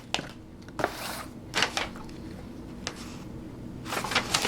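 Paper and cardboard rustling as receipts are lifted out of a box: a few separate short rustles, then a denser run of crinkling near the end.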